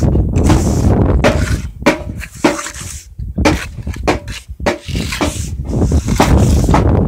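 Steel mason's trowel scraping and patting cement mortar into a border along the edge of a concrete slab: a string of short scrapes and taps, some with a brief ringing note. A steady low rumble of wind on the microphone lies underneath.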